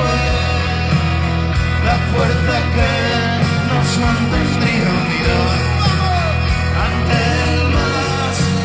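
Live rock band playing loudly: electric guitars, bass and drum kit, with a singer's voice at times.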